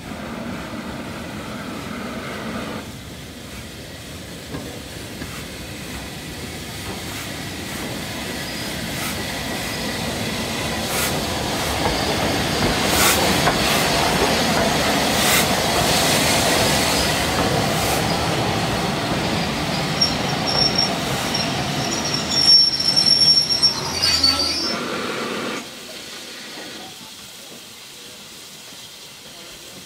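Southern Railway Schools class 4-4-0 steam locomotive No. 925 'Cheltenham' running close past on jointed track, building to a loud rumble with clicking from the wheels, then high-pitched brake and wheel squeal as the train slows to a stop. After an abrupt drop, a quieter stretch with the hiss of steam.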